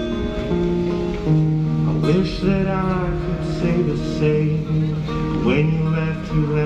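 Acoustic guitar being strummed, with a man's sung vocals over it through a small amplifier.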